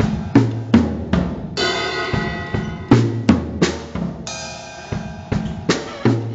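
Drum kit being played: bass drum and snare hits in a steady groove, with a crash cymbal ringing out about every three seconds.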